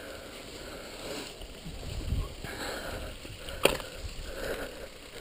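Downhill mountain bike rolling over a rough dirt track: tyre and rattle noise with wind on the body-mounted camera's microphone, and one sharp knock about three and a half seconds in.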